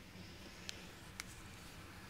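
Two small sharp clicks about half a second apart over a faint steady low hum.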